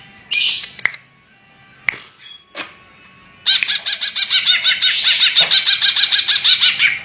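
Green leafbird (cucak ijo) singing: a brief burst of high notes, a pause of about two and a half seconds with a couple of sharp clicks, then a fast run of repeated high notes, about eight a second.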